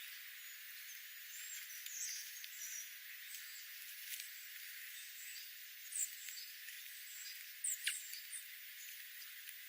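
Small songbirds giving scattered short, high chirps over a steady hiss, with one quick call sweeping down in pitch about eight seconds in.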